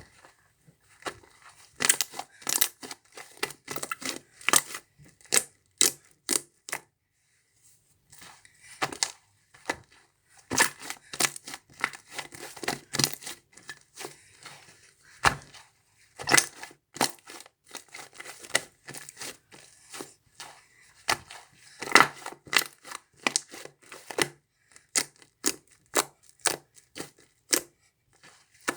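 Hands squishing, stretching and folding a large fluffy slime, giving a rapid, irregular run of sharp pops and crackles as air pockets burst, with a brief pause about a third of the way in.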